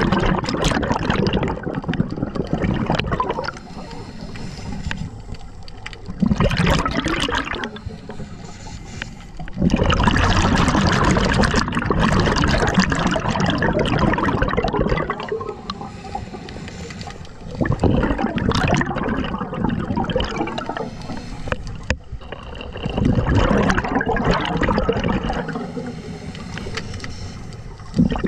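Scuba diver breathing through a regulator underwater: bubbling exhalations lasting a few seconds each, alternating with quieter stretches between breaths.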